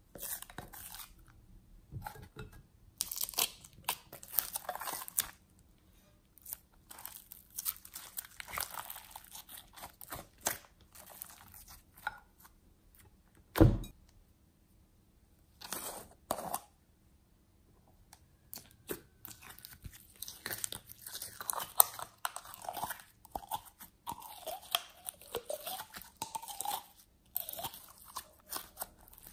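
Glossy slime being squished, pressed and stretched by hand: irregular wet crackles, pops and squelches that come and go, with one short loud thump about halfway through.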